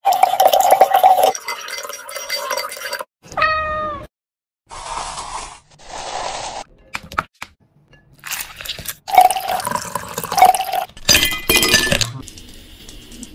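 Ice cubes poured from a plastic scoop clattering and clinking into a glass, once at the start and again in a longer run near the end. About three seconds in, a short cat meow, and around five seconds in, two brief stretches of steady hissing noise.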